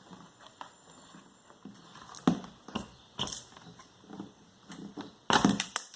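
Scattered knocks and clicks as a pedestal fan's blade is forced up off its motor shaft, ending in a louder cluster of quick knocks.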